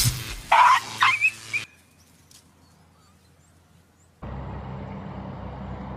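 Dog yelping in pain on getting a shock from an electric fence wire: a sharp burst, then two or three loud rising yelps within the first second and a half. About four seconds in, a steady rushing noise with a low hum sets in.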